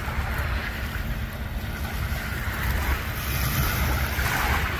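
Wind rumbling and buffeting on the microphone over the wash of small waves on open bay water, the hiss of the water swelling slightly in the second half.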